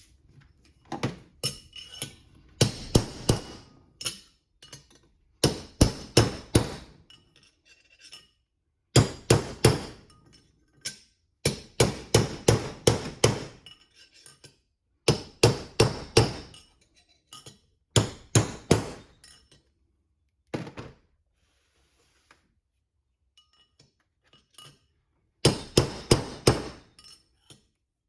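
Hammer blows on steel, in quick bursts of several metallic, ringing strikes separated by short pauses, driving a bearing race out of a Toyota 8-inch differential. The race is only slowly budging. The blows stop for a few seconds near the end, then start again.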